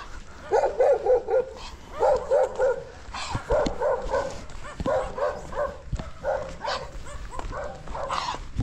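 A dog barking in quick runs of three to five barks, one run after another.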